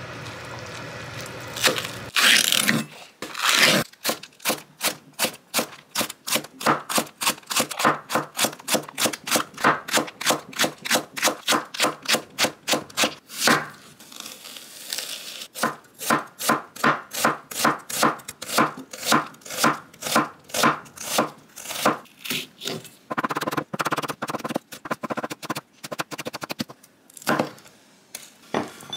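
Chef's knife chopping vegetables on a wooden cutting board: quick, even strikes, about three to four a second, with a short pause partway, through onion and then red chili. It opens with a brief steady sizzle of stir-frying in a pan.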